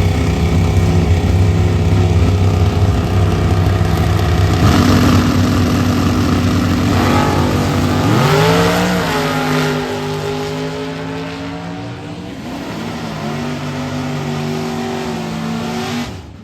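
Drag racing car engine, first running with a deep steady rumble, then accelerating hard with its pitch climbing and breaking off through several gear changes. After that it fades as it pulls away, and the sound cuts off suddenly near the end.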